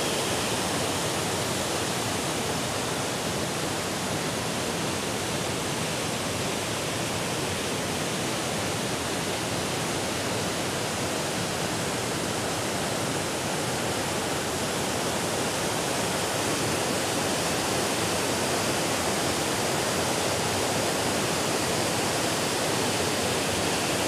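Waterfall: water pouring over rock ledges into a churning pool, a steady rushing sound with no change.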